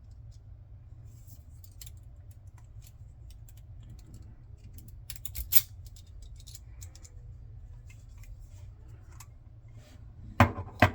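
Small metal padlock parts being handled and fitted: scattered light clicks and scrapes, a louder click about five and a half seconds in and two sharp clicks near the end, over a steady low hum.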